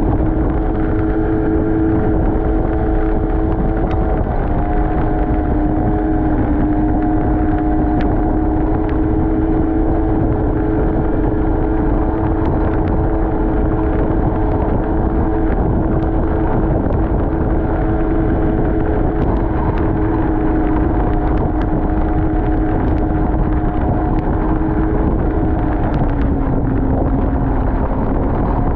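Snowmobile engine running at a steady speed under a heavy rush of noise; a few seconds before the end the engine note drops as it slows.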